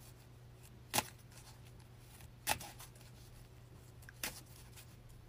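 Tarot cards being handled: three short sharp clicks about a second and a half apart, over a faint steady low hum.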